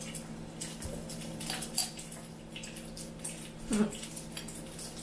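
Metal spoon clinking and scraping against a glass jar and a ceramic ramekin while rose jam is scooped into a bowl of soup: a few light, irregular clinks, the sharpest about two seconds in and again near four seconds, over a faint steady hum.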